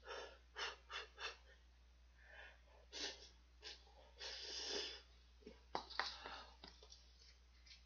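A person slurping instant noodles from a cup, with a few short sucks and one longer slurp about four seconds in, between quiet breaths. A few light clicks come near the end.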